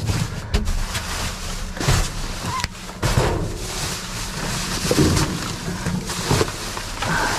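Rummaging through trash in a dumpster: irregular rustling and knocks over a steady low rumble.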